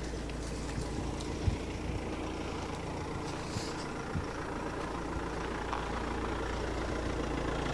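Camper van engine idling steadily, with one sharp knock about a second and a half in.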